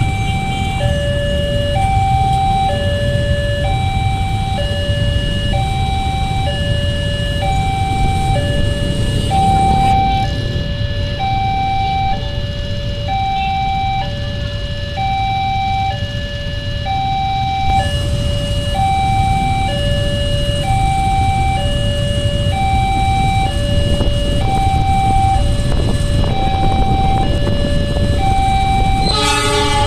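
Railway level-crossing warning alarm sounding a steady two-tone hi-lo signal, each tone held for just under a second and repeating without change, the warning that a train is approaching while the barriers are down. Under it is the low rumble of waiting road traffic, and near the end there is a short, louder sound with several tones.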